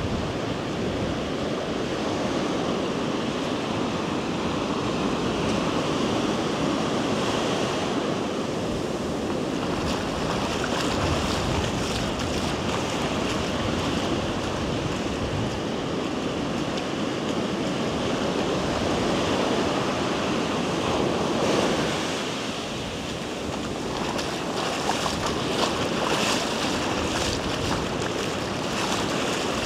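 Ocean surf washing onto a beach, a continuous rush that swells and eases, dropping back about three quarters of the way through. Wind is buffeting the microphone.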